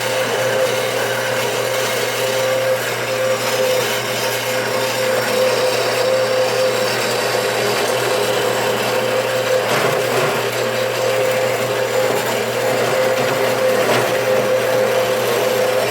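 Band saw running with a steady tone, its blade cutting through thick brass stock.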